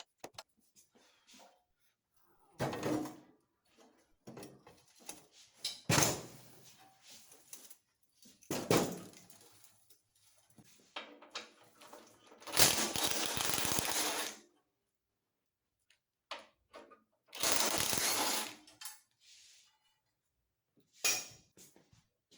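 Work noises from taking apart a chrome steel front bumper assembly: scattered knocks, clanks and clatters of metal parts and tools, with two longer noisy bursts of about two seconds each, near the middle and about two thirds in.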